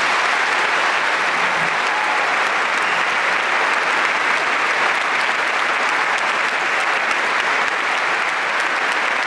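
Audience applauding, a steady, loud wall of clapping.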